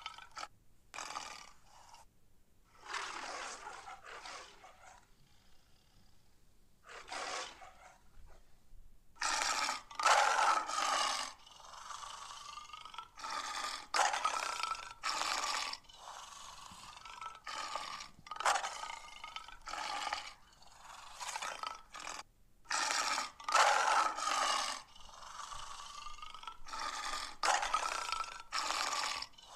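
Lion roars and growls in a long run of short bursts, each about a second long with brief gaps between, quieter for a few seconds early on and then coming thick and loud.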